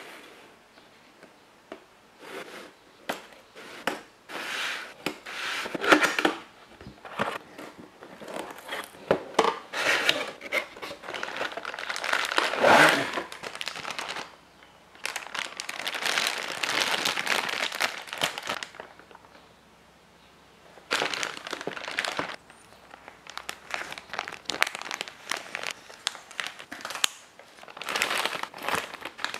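Clear plastic bags crinkling and rustling as a boxed figure and its round base are handled and unwrapped, in stretches with short pauses, mixed with light clicks and knocks of plastic parts.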